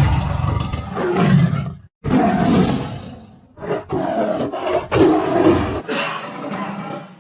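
Tiger roaring as a sound effect: several loud, rough roars in a row, one cutting off abruptly about two seconds in before the next begins.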